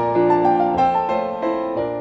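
Solo piano playing a waltz for ballet class, with chords and melody notes struck in a steady three-beat pulse.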